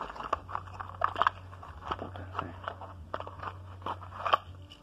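Cardboard-and-plastic toy car packaging being pulled open and handled, giving irregular crackles, crinkles and scrapes.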